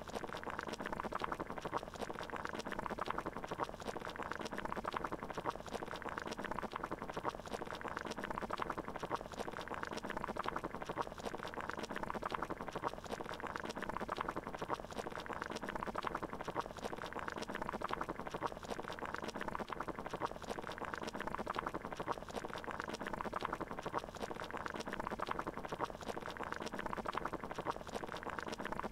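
Water boiling in a pot: a steady bubbling made of many small pops.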